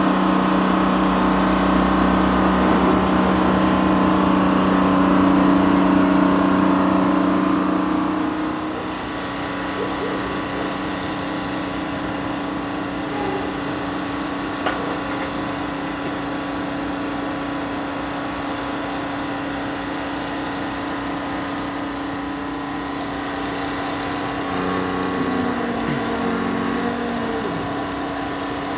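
Diesel engines of a Jordan ballast spreader, powered by a Detroit Diesel, and the SD30C-ECO locomotive pushing it, running steadily as the train works slowly past. The drone is loudest for the first eight seconds or so, then eases and holds steady, with a single click about halfway through.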